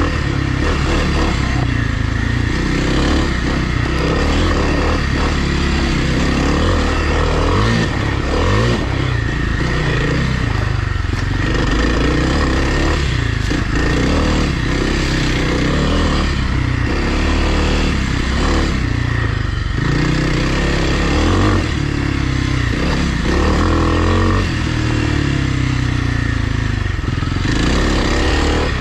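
Kawasaki KLX300R dirt bike's single-cylinder four-stroke engine running continuously, its note rising and falling again and again as the throttle is opened and closed.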